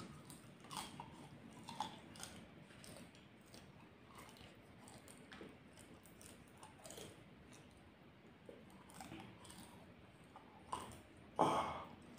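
Close-up chewing and crunching of raw bird's eye chilies, with scattered wet mouth clicks. A louder mouth sound comes near the end.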